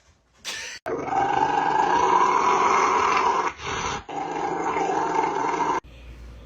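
Dog growling steadily for about five seconds, with two brief breaks, then cutting off sharply.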